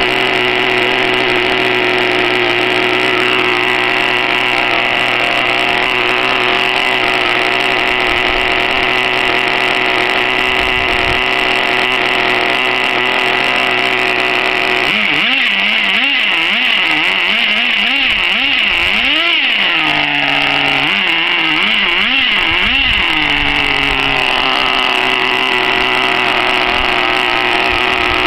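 Small nitro glow-fuel engine of an RC monster truck idling steadily while warming up. About halfway through it is blipped with the throttle about eight times in quick succession, each rev rising and falling, then it settles back to idle.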